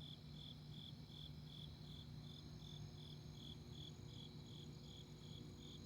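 Crickets chirping at night, a faint, even rhythm of about two to three chirps a second, over a low steady hum.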